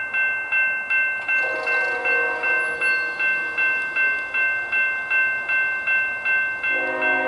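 Grade crossing warning bell ringing steadily, about three strokes a second. A diesel locomotive's multi-note horn sounds for the crossing about a second and a half in, then again, louder, near the end.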